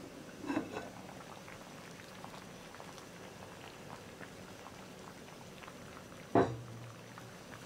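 Curry udon simmering in an earthenware pot, thick broth bubbling with small steady pops. A short ceramic clink comes about half a second in as the pot's lid is lifted, and a single sharp knock, the loudest sound, a little after six seconds.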